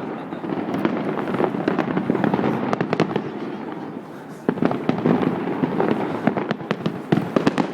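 Fireworks crackling and popping in a dense, rapid stream of sharp cracks. They thin out a little about halfway through, then start up again abruptly.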